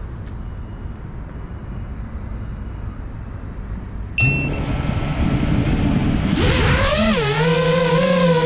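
Low outdoor rumble. About four seconds in comes a short beep, and an FPV quadcopter's brushless motors start spinning at idle. About two seconds later they throttle up into a loud whine that dips and wavers in pitch as the drone lifts off.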